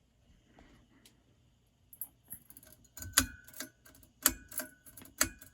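Sharp clicks and knocks with a brief metallic ring as the controls of a 1981 Casablanca ceiling fan are worked to set it running. Small clicks come first, then three louder ones about a second apart in the second half.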